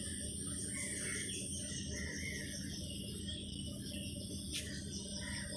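Fish pieces frying in hot oil in a metal kadai: a low, steady sizzle while they are turned and lifted out with a spatula, with a single sharp tap of the spatula against the pan about four and a half seconds in.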